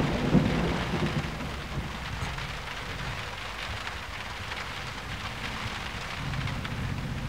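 Steady rain-like hiss over a low rumble, a little louder near the start and again near the end.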